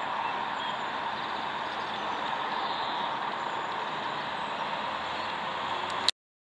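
Boeing 767-300ER jet airliner flying overhead: a steady rush of jet engine noise, ending in a sharp click as the sound cuts off abruptly near the end.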